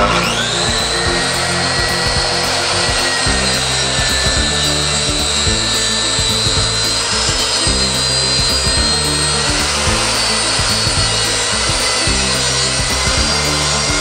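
Mafell MT 55cc plunge-cut track saw starting up with a quick rising whine, then running at a steady pitch as its blade rips along a guide rail through a live-edge wooden board.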